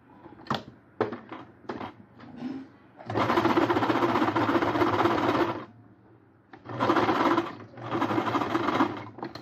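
Electric domestic sewing machine stitching a straight seam in knit fabric: one run of about two and a half seconds, then two shorter runs close together near the end. It is preceded by a few light clicks.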